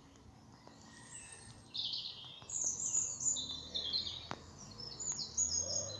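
A songbird singing a quick, jumbled run of high chirping notes, starting about two seconds in.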